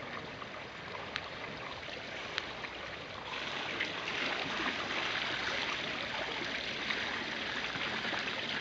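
Water pouring and splashing steadily onto the pool surface from the outlet of a kayak's customized high-output Freedom 500 electric bilge pump, pumping out the flooded cockpit after a roll. The splashing grows louder about three seconds in and then holds steady.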